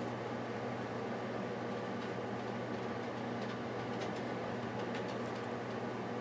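Steady low machine hum and hiss, with a few faint small clicks of the bronze screw and brass cap being handled about halfway through.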